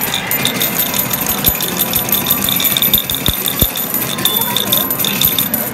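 Medal-pusher arcade machine: a steady clatter of metal medals clinking and rattling against each other, under a high, pulsing electronic chime from the machine.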